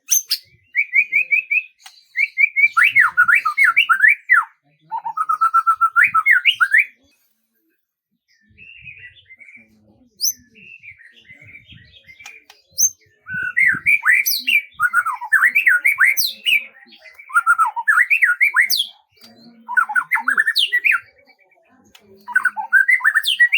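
A songbird singing in bursts of fast, varied chirping and warbling phrases. The song stops for a moment about seven seconds in, goes on with quieter chirps, then picks up again loudly about halfway through.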